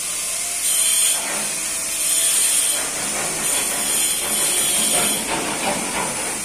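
Hand-tool work at a building site: repeated scraping strokes with a hissy edge, about one every second and a half.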